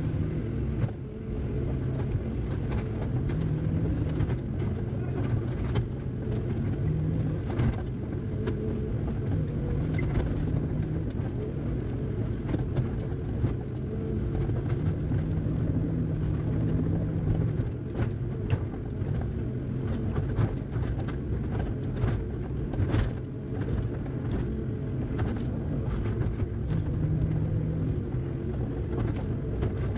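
Excavator engine running steadily as heard from inside the cab, its drone strengthening briefly several times as the hydraulics take load. Scattered knocks and clatter from the bucket scraping and dumping soil and stones.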